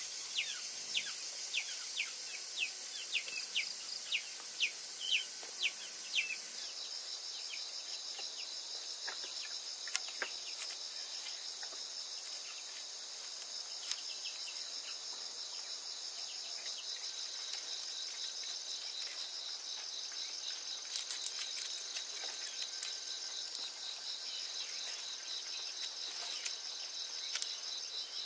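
Insects trilling steadily in dense, high-pitched pulsing chorus. For about the first six seconds a bird calls over it in a quick series of short falling chirps, about two a second.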